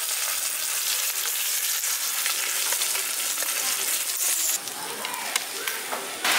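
Katla fish pieces shallow-frying in hot mustard oil in a kadai: a steady sizzle with scattered small crackles and pops, a little quieter about four and a half seconds in.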